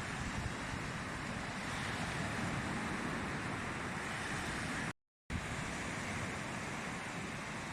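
Small waves of a calm sea washing onto the beach, with wind buffeting the microphone. The sound drops out completely for a moment about five seconds in.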